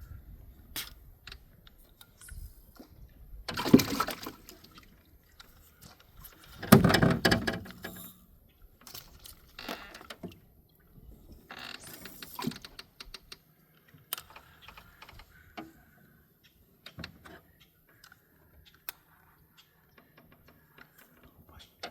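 Water splashing in two short bursts, about four and seven seconds in, with a weaker splash near twelve seconds, amid scattered small clicks and knocks of fishing tackle being handled in a boat.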